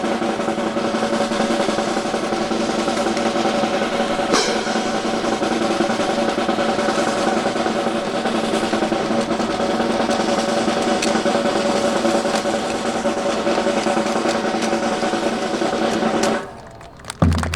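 A long, continuous snare drum roll that cuts off abruptly near the end, followed by a single low drum hit.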